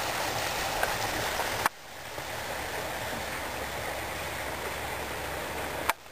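Steady outdoor rushing noise, broken by two sharp clicks where the recording cuts, about two seconds in and near the end.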